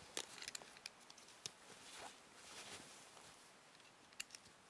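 Faint rustling and scattered small clicks of a fabric gear bag being closed by hand, with a couple of sharper ticks about four seconds in.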